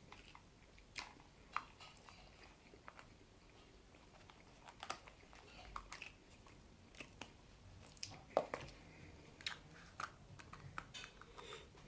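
Close-up chewing and biting of a chicken burrito, with scattered wet clicks and small crunches; the loudest crunch comes a little after 8 seconds in.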